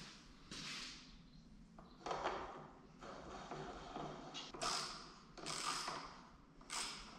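Hand work on the handlebar controls while a throttle twist-grip assembly is fitted: a series of about six short scraping and creaking noises of parts and tools being handled.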